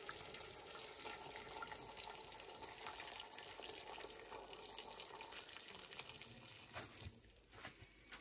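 Hot water poured from a kettle in a steady stream into a pressure cooker, splashing onto the vegetables and the rising water in the pot; the pour stops about seven seconds in.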